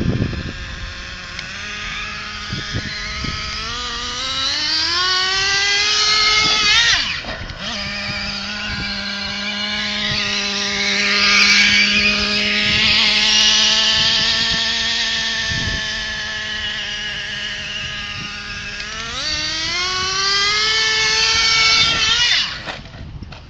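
Traxxas Revo 3.3 RC monster truck's two-stroke nitro engine running at high revs, a high whine that climbs, holds, eases off and climbs again, then cuts off suddenly near the end.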